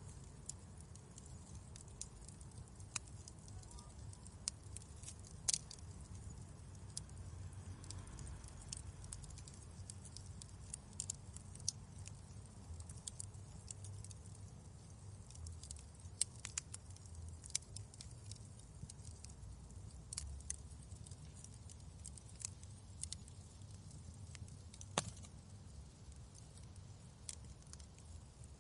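Wood fire burning in a fireplace: a low steady rumble of flames with irregular sharp crackles and occasional louder pops.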